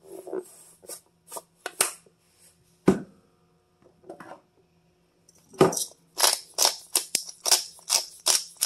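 A few light taps and clicks as salt is shaken over raw eggs in a glass bowl. Then, about five and a half seconds in, a hand pepper grinder is turned over the bowl, giving a steady run of crunchy clicks about three a second.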